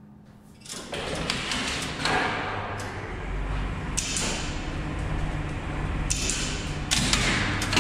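Old Express Lifts lift machinery running with a steady low hum, broken by several sharp clicks and clunks of relays and switches operating.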